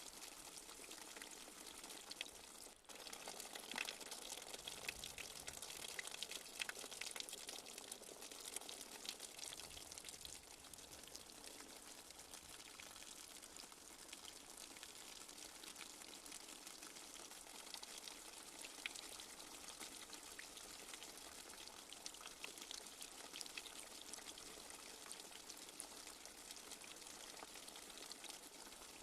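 Light rain falling steadily: a soft, even hiss full of fine drop ticks and drips. It drops out for a moment about three seconds in.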